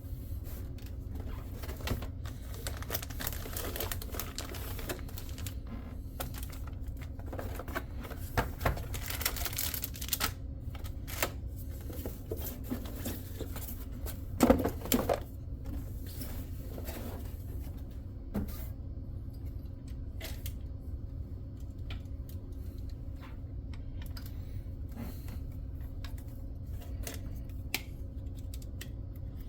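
Irregular small clicks and clacks of computer hardware being handled and unscrewed while a desktop PC is taken apart, with a louder clatter about halfway through. A steady low hum runs underneath.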